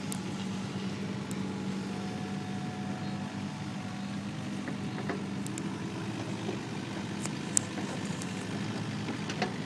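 Engine of heavy earthmoving machinery running steadily at a low, even pitch, with a few faint clicks and knocks.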